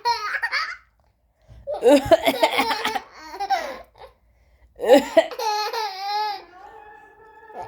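Laughter in three bursts with short pauses between them, a reaction to a cough sound. A fainter steady tone sets in near the end.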